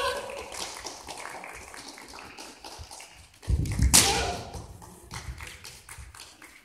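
Kendo sparring: bamboo shinai clacking and tapping against each other and bare feet shuffling on a sports hall floor, with one loud strike and foot stamp about four seconds in.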